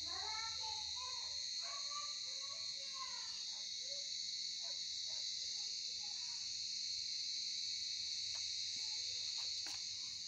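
A chorus of crickets chirring steadily, one continuous high-pitched trill.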